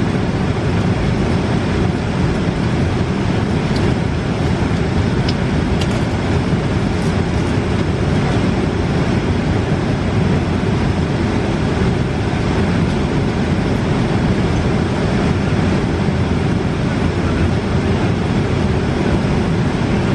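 Steady low rumble of airliner cabin noise in flight, the engines and rushing air heard from inside the passenger cabin.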